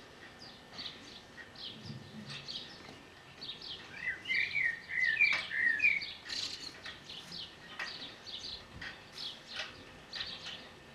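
Small garden birds chirping in short, irregular calls, with a warbling run of notes from about four to six seconds in.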